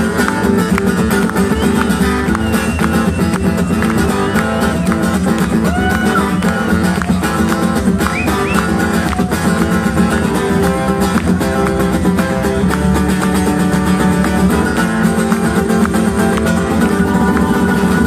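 Live music: an acoustic guitar strummed in a steady rhythm.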